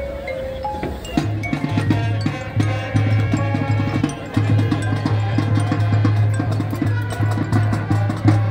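Marching band and front-ensemble percussion playing. A few held mallet notes come first, then about a second in a loud low held note enters under rapid percussion strokes.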